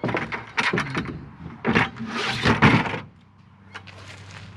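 Pieces of scrap aluminum clanking and rattling as they are picked through and tossed onto a pile. The clatter is busy for about three seconds, then dies down.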